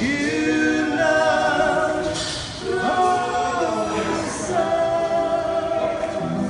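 Several men singing in close harmony, holding long notes and gliding between them. The voices carry the music, and the guitars and upright bass are barely heard beneath them.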